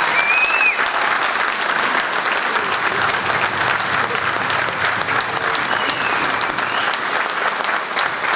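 Audience applauding, a steady ovation of many hands clapping.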